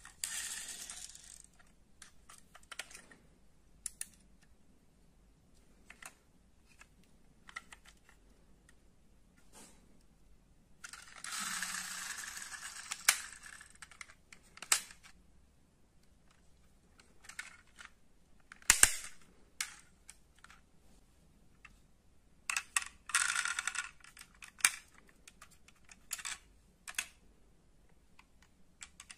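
Small die-cast metal toy cars being handled: scattered clicks and clacks, with three spells of clinking and rattling one to three seconds long, and a few sharper snaps, the loudest about two-thirds of the way through.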